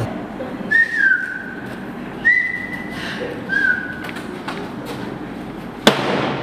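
A person whistling three short notes: the first slides down, the second is held for most of a second, the third is brief. Near the end comes a single sharp thump, the loudest sound.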